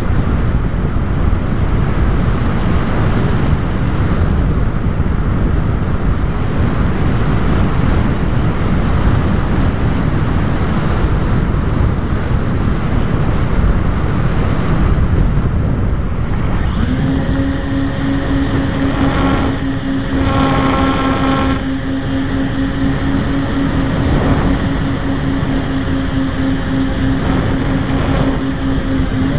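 Wind rushing over a model plane's onboard camera. About two-thirds of the way through, the plane's motor comes in with a steady whine over the wind.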